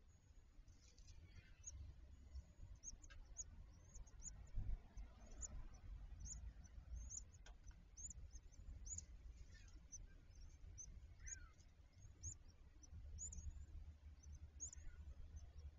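Faint, short, high bird chirps repeated irregularly, about one or two a second, over a low background rumble.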